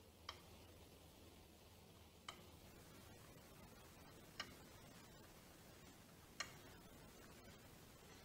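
A 1940s Synchronome electric master clock ticking: four short, sharp ticks evenly spaced about two seconds apart, over a faint low hum.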